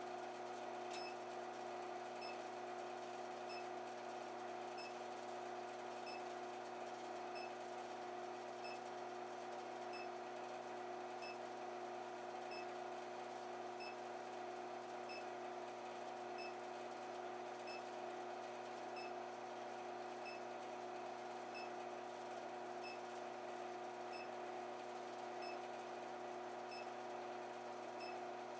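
Steady electrical hum of an LH-15a induction heater running while it heats a copper tubing joint for soldering, with a faint tick about every 1.3 seconds.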